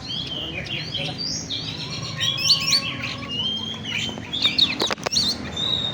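Oriental magpie-robin (kacer) singing a fast run of varied whistled notes and chirps, with a brief click about five seconds in.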